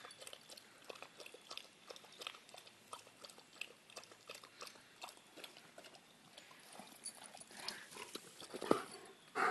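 German Shepherd lapping water from a stone birdbath: a run of quick, irregular wet clicks. A single louder sudden sound comes near the end.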